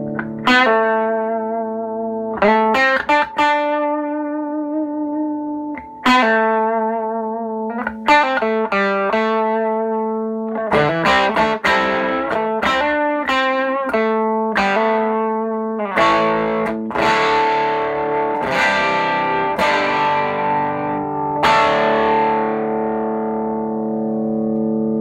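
Electric guitar played through a Sano 16WR vintage tube combo amplifier. A slow run of chords and single notes is struck and left to ring, busier in the middle, ending on a long ringing chord.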